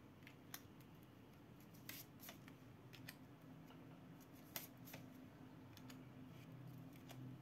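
Near silence with a few faint, sharp clicks and ticks, scattered irregularly: tarot cards being handled.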